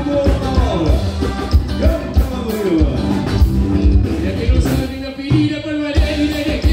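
Live gaúcho regional band music: accordion lead over electric bass and drum kit with a steady beat, and a man singing.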